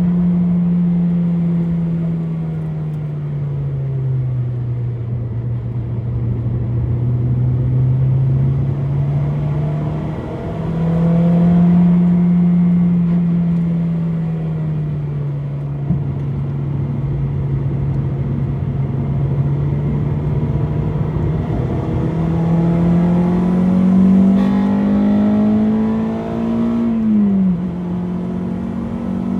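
Honda Civic EP3's K20A2 inline-four engine running hard on a race track. Its note sinks and climbs in long sweeps with throttle and speed, with a sharp drop in pitch near the end.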